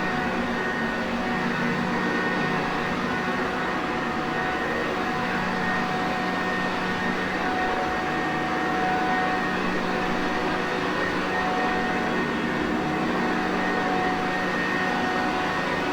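Sanitaire Perfect upright vacuum cleaner running steadily: an even motor drone and airflow hiss with a few constant whining tones.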